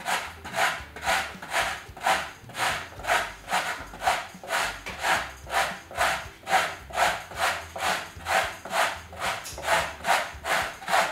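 A carrot being grated by hand on a flat metal grater over a plastic container: even, rhythmic rasping strokes, about two and a half a second.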